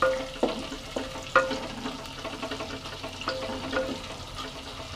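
Chopped onion and whole spices sizzling in hot oil in a clay cooking pot while being stirred, the utensil knocking against the pot about six times with a brief ring after some knocks.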